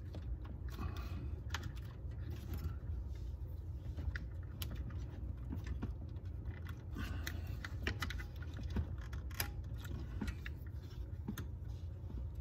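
Scattered small plastic clicks and rattles of wiring-harness connectors and bulb sockets being handled and pushed in at the back of a car's instrument cluster, over a steady low hum.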